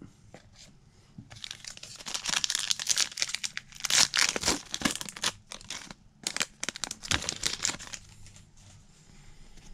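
A foil trading-card pack being torn open and crinkled by hand: a dense crackling and ripping of the foil wrapper that starts about a second in and stops near the end.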